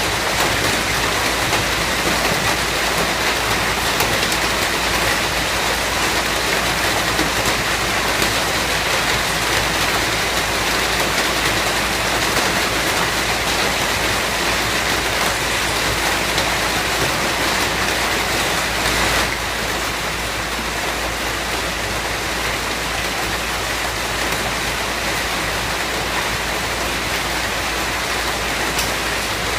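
Steady rain falling, a dense even hiss of drops, dipping slightly in level about two-thirds of the way through.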